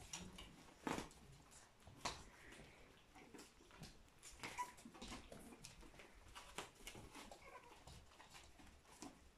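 Faint scuffling and pattering of puppies moving on puppy pads and a wooden floor, with scattered light taps, two sharper ones about one and two seconds in, and a brief faint puppy squeak near the middle.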